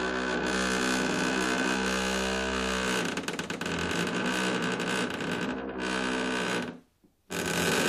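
Wooden door creaking on its hinges in a long, drawn-out groan that turns rough and crackly about three seconds in. It breaks off briefly near the end before another creak begins.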